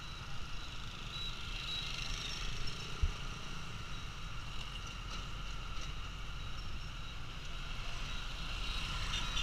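Busy street traffic: a steady wash of many scooter and motorbike engines, with cars and buses passing. There is one brief low thump about three seconds in.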